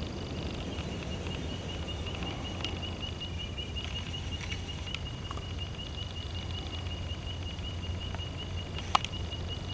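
White-throated treecreeper calling: a long, steady series of high piping peeps, rapidly repeated on one pitch, given urgently. A sharp click sounds near the end.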